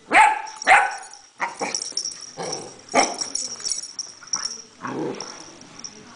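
A puppy barking repeatedly at a pill bottle: two loud barks at the start, then a string of quieter barks that trail off about five seconds in.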